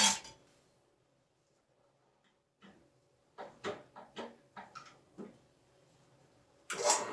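A few light clicks and knocks as a small winch is handled and set in place on a drill press table. Near the end the drill press's electric motor switches on suddenly and runs with a steady hum.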